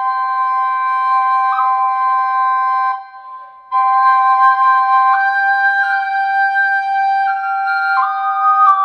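Small Native American double flute, a pocket flute, playing a slow stepwise melody on one pipe over a steady drone note from the other. Both pipes stop briefly about three seconds in, then resume.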